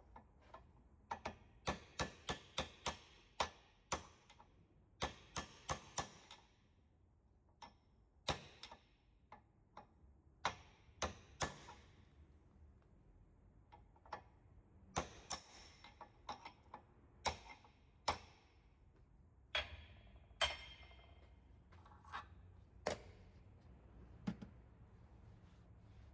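Sharp metal-on-metal taps and clinks at irregular intervals, some ringing briefly, as metal tools and bearing parts are handled and struck. The taps come in a quick cluster early on, then more spread out.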